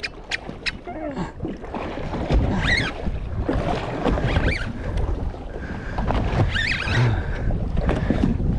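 Wind buffeting the microphone over water lapping and slapping against a small boat's hull, with a few light clicks in the first second.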